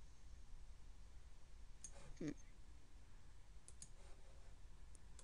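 A handful of faint computer mouse clicks, spaced irregularly, with a brief low voice-like sound about two seconds in.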